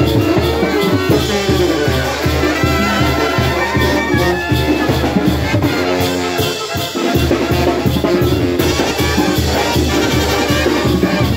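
Live Oaxacan brass band (banda) playing a dance tune: trumpets and other horns over a steady pulsing bass line from sousaphones and drums. The bass drops out briefly about two-thirds of the way through.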